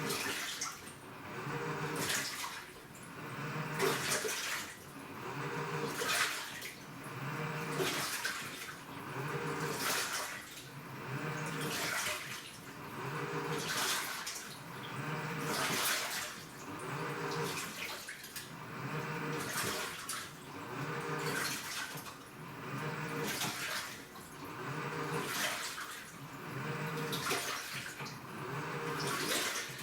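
Washing machine in its wash cycle: the motor hums as it turns the drum or pulsator, and water sloshes in a steady rhythm that repeats about every two seconds as the drive reverses.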